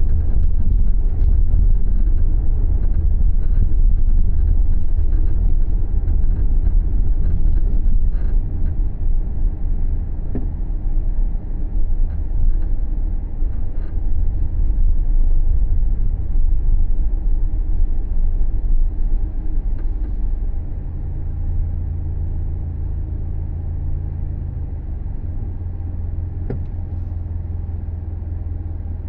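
Subaru Levorg driving, heard from inside the cabin: a steady low road and drivetrain rumble. About two-thirds of the way through it quietens and a steady low hum sounds for a few seconds.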